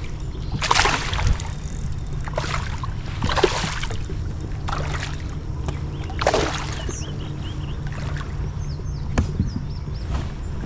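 Water splashing in about five short, irregular bursts beside a kayak: a hooked fish thrashing at the surface as it is landed. A steady low rumble runs underneath.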